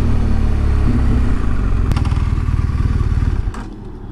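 2016 BMW R1200GS Adventure's boxer-twin engine running as the motorcycle rolls slowly into a parking lot, with a single click about two seconds in. The engine sound cuts off abruptly about three and a half seconds in as the bike is stopped, leaving only a faint low hum.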